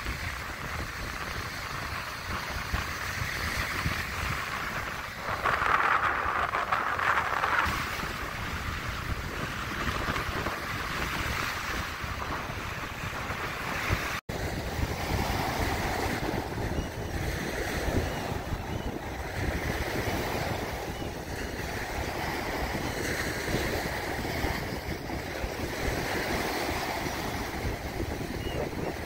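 Choppy waves breaking and washing up a sandy beach in strong wind, with wind buffeting the microphone. One wave breaks louder about six seconds in, and the sound drops out for an instant about halfway through.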